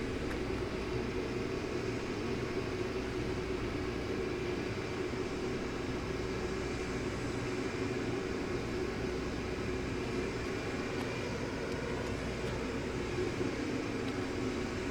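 Sterling Model M outdoor warning siren sounding a steady alert, one constant low, rough tone with no rise or fall.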